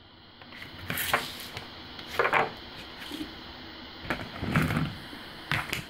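A few scattered light knocks and rustles of objects being handled, about four over several seconds.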